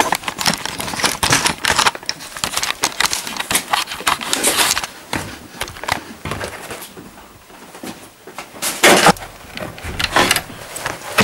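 Clattering and rustling of stiff cardboard and workbench clutter as a hand-built cardboard model plane is picked up and carried, with a louder knock about nine seconds in and then the clicks of a metal door bolt being worked.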